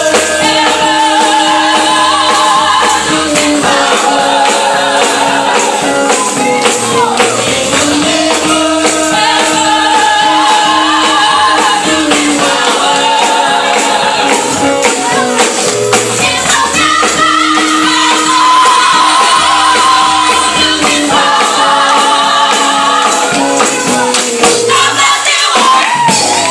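Gospel choir singing in held, harmonised phrases over a band, with a bass line moving underneath and a tambourine shaking steadily throughout.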